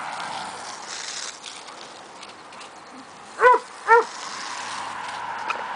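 A dog barks twice, two short high barks about half a second apart, over the steady hiss of a garden hose spraying water.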